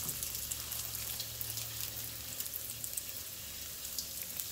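Egg foo young batter of egg, bean sprouts and shrimp frying in hot oil: a steady sizzle with scattered fine crackles.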